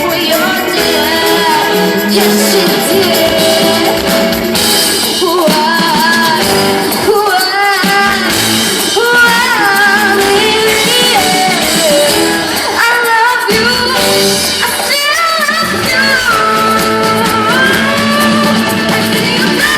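Live pop band playing with a lead voice singing over it, loud and amplified through a sound system.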